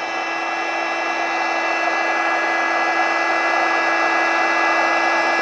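Handheld 12-volt electric air inflator running steadily, a motor whine over rushing air, as it blows up an inflatable air mattress through its large nozzle. It grows slightly louder as the mattress fills.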